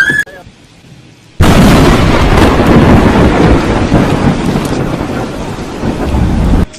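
Thunder from a close lightning strike: a sudden, very loud crack about a second and a half in, going straight into a long heavy rumble that slowly eases and cuts off suddenly near the end.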